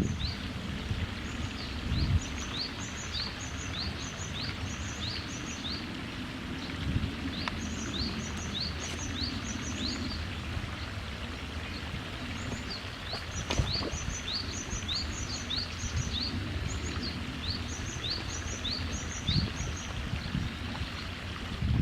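A small bird singing the same short, high two-part note over and over, about two to three times a second, in runs with a brief pause about halfway through, over a steady low background rumble.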